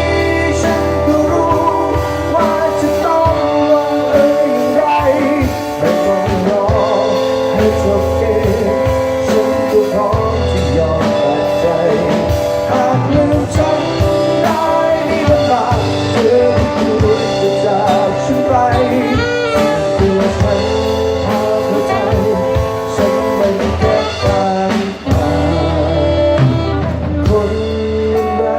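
A band playing a song: a melodic instrumental passage with a wavering lead line over guitar and drums, without clear sung lyrics.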